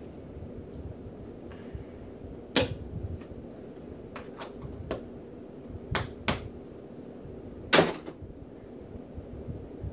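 About eight scattered sharp clicks and knocks over a steady low hum. The loudest, a slightly longer knock, comes about eight seconds in.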